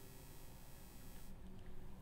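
Faint room tone from the recording microphone: a steady low hum under an even hiss, the upper hiss dropping away briefly near the end.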